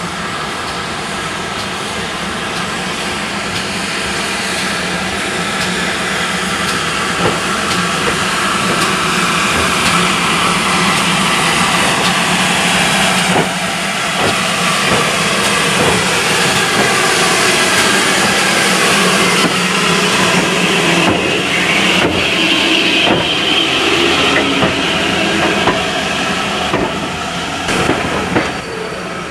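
GWR Hall class 4-6-0 steam locomotive No. 4953 running with its train through a station, with steam hissing and clicks from the wheels. It grows louder over the first twenty seconds or so, with a brief dip about halfway through.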